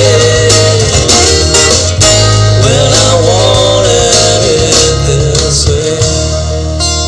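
Live band playing an instrumental passage: a lead guitar line with bent notes over strummed acoustic rhythm guitar, bass and drums. About six seconds in the cymbals stop and a held chord rings on.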